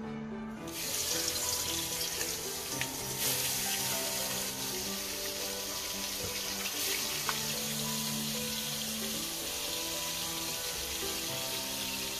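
Pieces of snakehead fish sizzling as they go into hot oil in a wok, a dense steady hiss that starts suddenly about a second in. Background music plays underneath.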